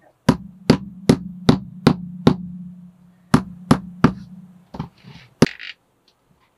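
Rubber mallet tapping vinyl plank flooring into place: a run of six even taps, a short pause, three more, then two single taps.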